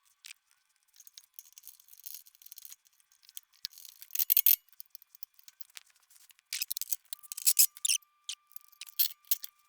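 Sharp clicks and rattles of small engine parts being handled and fitted by hand during reassembly, in irregular clusters that are loudest about four seconds in and again toward the end. A faint steady high tone comes in about seven seconds in.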